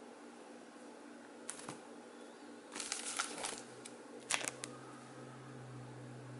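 Plastic comic-book bags crinkling and rustling in short bursts as bagged comics are handled, set down on a stack and drawn from a box. The bursts come about a second and a half in, around three seconds and near four and a half seconds, over a low steady hum.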